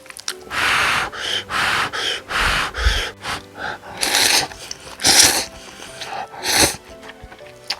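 Cup noodles slurped in a run of short, noisy sucking pulls, about eight in a row, over faint background music.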